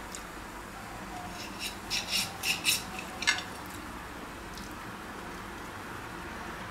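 Table knife sawing through a grilled steak and scraping on the plate: a quick run of five or six short scraping strokes between about one and a half and three and a half seconds in.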